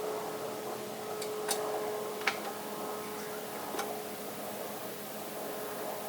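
A steady mechanical hum from a running machine, with a few sharp ticks and clicks over the first four seconds.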